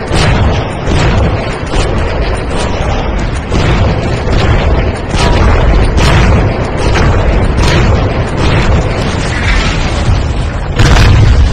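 A barrage of explosions and weapon fire: booms one after another, every half second to a second, over a continuous low rumble, with a louder burst near the end.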